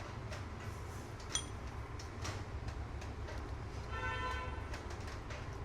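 Low, steady rumble of background traffic with a vehicle horn honking once about four seconds in, and a few faint clicks of handling.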